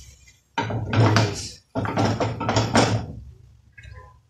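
Metal frying pan of shrimp clattering as it is shaken and stirred on the gas stove, in two bursts of rapid knocking and scraping, each about a second long.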